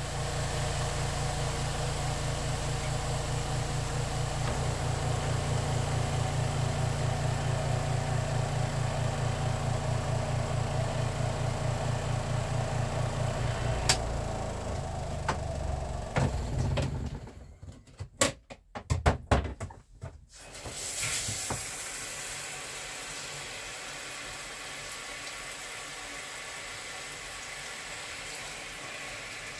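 Spin-dryer motor of a portable twin-tub washing machine humming with a fast, even pulse. About halfway a click comes as the spinner knob is turned, and the motor winds down. A few sharp knocks follow, then a steady hiss.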